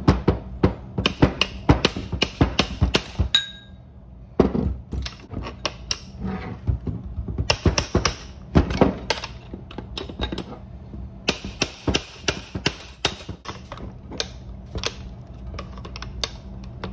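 Rapid, irregular metallic clicks and knocks as a steel drift pin pries and bangs at the latch and lid of a sealed steel military ammo can that is stuck shut. The strikes come in three bursts, with short pauses about three and a half seconds in and again about ten seconds in.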